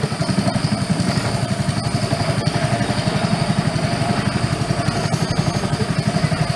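Small boat motor running steadily with a fast, even chug of about a dozen pulses a second.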